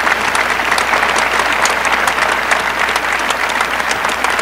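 Crowd applauding steadily, a dense clatter of many hands clapping.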